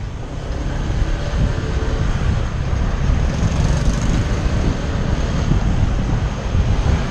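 Steady rumble of a vehicle on the move, with wind buffeting the microphone.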